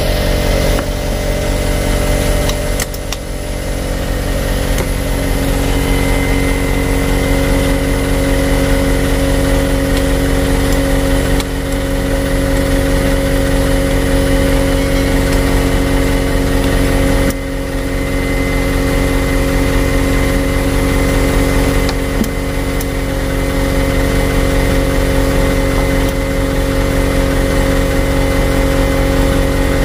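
An engine running steadily at a constant speed, an unchanging hum with no revving. The level dips briefly about three seconds in and again around seventeen seconds.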